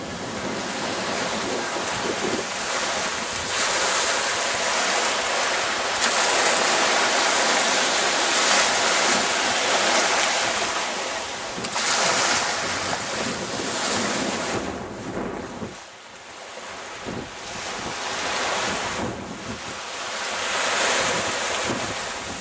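Small waves washing onto a sandy beach, the wash swelling and easing, with wind buffeting the microphone.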